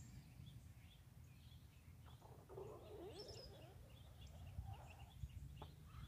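Faint, rapid chirping of small songbirds, with a low rumble underneath.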